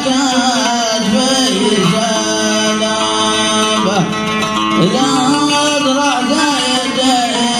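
Male voice singing a wordless, wavering melismatic line with some long held notes in Hadrami style, accompanied by a plucked oud.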